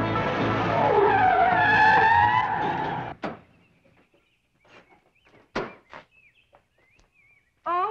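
Car pulling up with its engine running and braking to a stop with a tire squeal, ending in a sharp click. After that it goes mostly quiet except for a couple of short knocks at the car and faint high chirps.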